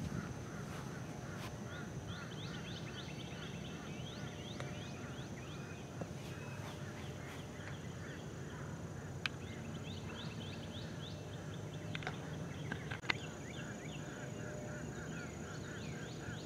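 Outdoor birdsong of rapid, repeated short chirps over a steady high-pitched whine, with a couple of sharp clicks partway through.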